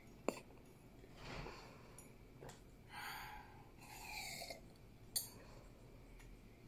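Faint breathing and sips as a girl drinks water from a glass to cool her mouth after a very spicy chip, with a few heavy breaths, one with a short falling whimper-like tone near the middle. There are two small clicks, one just after the start and one about five seconds in.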